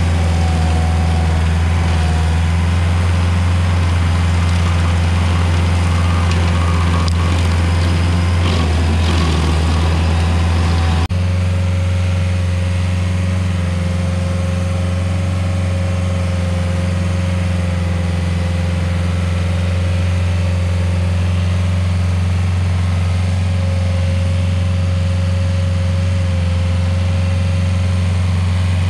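Rayco RG50 stump grinder's engine running steadily at high speed, at first with the cutter wheel grinding into maple stump and roots. About eleven seconds in the sound changes abruptly to the engine alone running evenly, with a thin steady whine.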